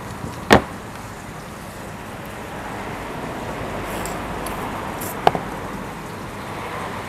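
Steady room noise at a shabu hot-pot table, with two sharp clinks of utensils on tableware: a loud one about half a second in and another about five seconds in.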